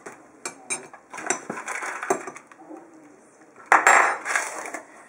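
Metal spoon clinking against a stone mortar and the countertop as powder is spooned in, with light rustling of packets and a cardboard box. Several small clinks come in the first two seconds, and the loudest sharp clack comes just before four seconds in.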